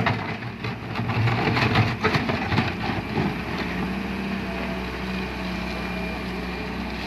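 Heavy diesel machinery running steadily, with knocks and clatter in the first three seconds.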